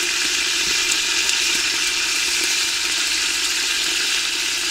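Chunks of beef pot roast searing in hot fat in an aluminium pressure-cooker pot, making a steady sizzle.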